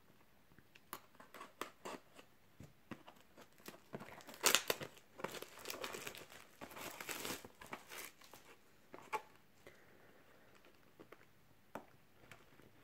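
A cardboard trading-card display box being handled and torn open: faint crinkling, tearing and scattered clicks, busiest about four to eight seconds in, thinning to a few clicks later on.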